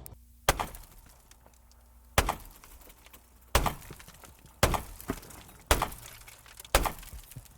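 9mm bullets striking a car windshield: six sharp impacts with a glassy crack, about one a second.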